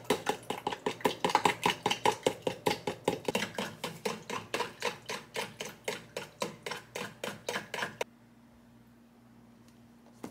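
Quick, even strokes of a kitchen utensil, about five a second, stopping suddenly about eight seconds in.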